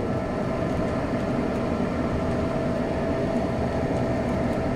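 A steady, even low hum with one faint constant whine running through it: the sound of a fan or appliance running.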